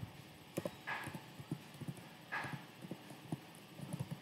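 Computer keyboard typing: a scatter of faint, irregular keystroke clicks as the word 'classmate' is typed and a typo corrected. Two short soft hisses come in between, about a second in and about halfway through.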